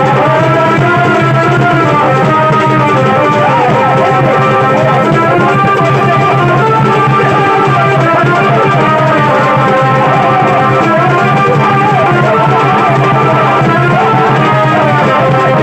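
Loud music with drums under a melody line that bends and glides in pitch, going on without a break.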